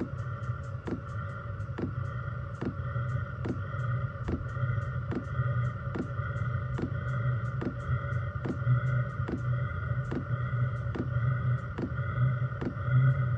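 Chinese diesel air heater starting up: the dosing fuel pump ticks at a steady rate, a little more than once a second, over the steady hum of the blower fan and the burner catching. The ticking is the pump priming fuel into the combustion chamber.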